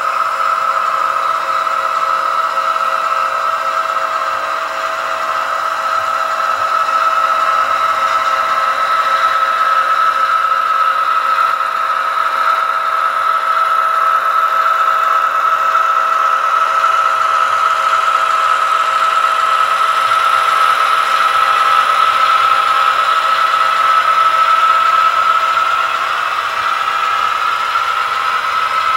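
Model train running along the track: a steady high-pitched whine from the model diesel locomotive over the rolling noise of the hopper cars on the rails, a little louder after several seconds.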